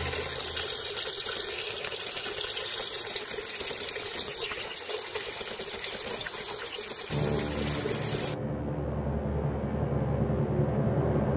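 Steady rush of running water, with little bass. About seven seconds in, background music comes back in over it.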